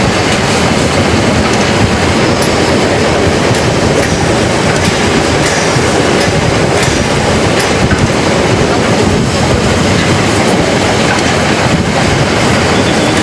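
Metre-gauge Harz narrow-gauge railway train running downhill: a steady, loud rumble of coach wheels on the rails, with irregular clicks from the rail joints.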